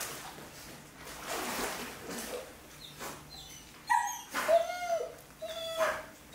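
Dog whining, a few short high whimpers and yips in the second half, as if it is stuck on a pool float and asking for help.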